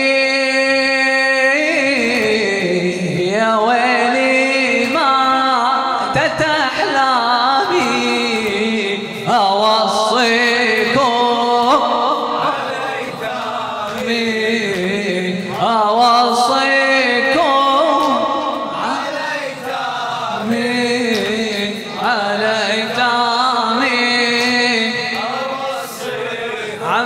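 A man chanting a mournful Arabic latmiyya lament through a microphone, unaccompanied, in long held and wavering melodic lines.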